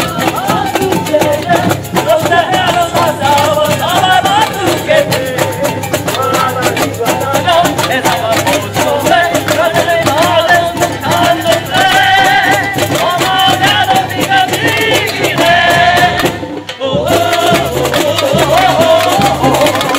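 Samba bateria playing a steady samba beat on surdo bass drums and snare drums with shakers, while a woman sings through PA speakers. Everything drops out for about half a second near the end, then the drums come back in.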